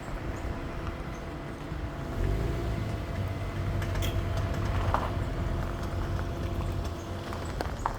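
A motor vehicle running close by. Its low rumble grows louder about two seconds in and eases off near the end, with a few scattered clicks.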